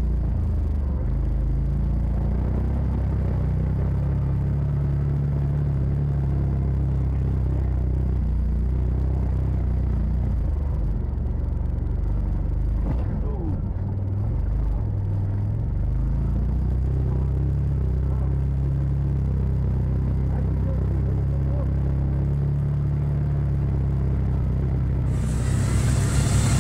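Side-by-side UTV engine running on the move, a steady low drone whose note shifts briefly about halfway through.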